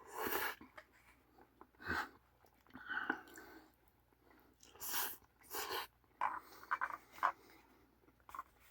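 A person eating ramen: a string of short, separate slurping, chewing and breathing noises.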